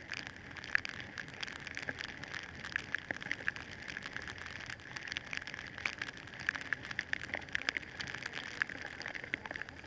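Rain drops striking the camera many times a second, over a steady hiss of rain.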